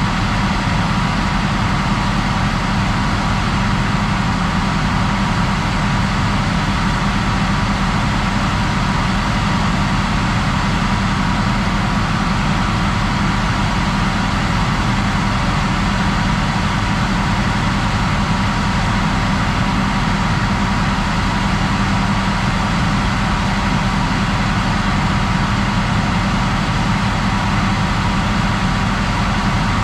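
Heavy machinery engine running steadily at constant speed, a loud, even drone with a steady hum.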